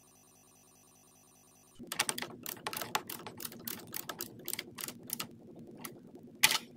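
Socket wrench working the nut on a car battery's terminal clamp: a run of quick metallic clicks and knocks, with one loud clank near the end. Before it starts there is a faint, steady electronic tone for about two seconds.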